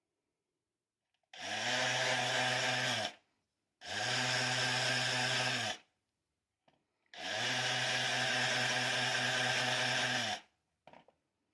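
Small electric power tool run in three bursts of about two to three seconds each, its motor holding a steady pitch and starting and stopping sharply.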